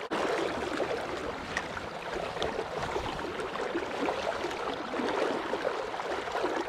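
Steady rush of moving water, an even hiss without any rhythm, with small scattered ticks.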